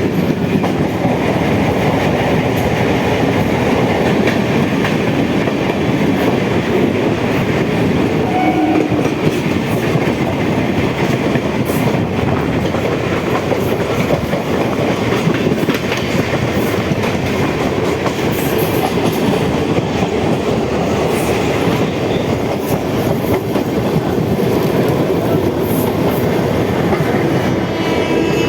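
Train running along the rails: a steady, loud rumble with the clickety-clack of wheels over the track.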